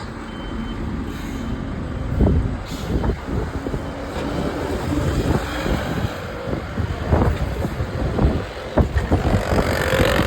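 Bus engine running close by, with a swelling hiss of air near the end.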